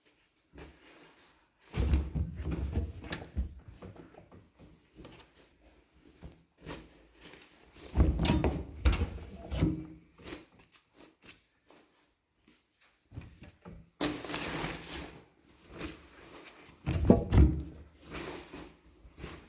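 Clunks, thuds and handling noise from a washing machine being loaded, with its door or detergent drawer being worked; there are four separate bouts of knocking.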